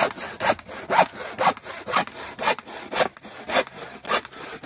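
Stanley handsaw cutting through a thin pine pallet board, a steady run of back-and-forth strokes at about two a second.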